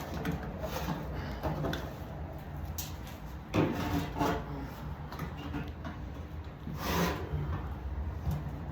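Hands scraping and rubbing a furnace control board and its mounting as it is worked loose, in irregular strokes, the loudest about three and a half and seven seconds in, over a steady low hum.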